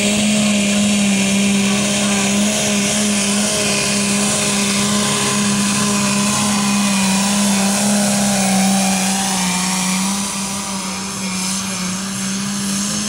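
Pulling tractor's engine running flat out at one steady high pitch as it drags a weight-transfer sled, easing off slightly about ten seconds in.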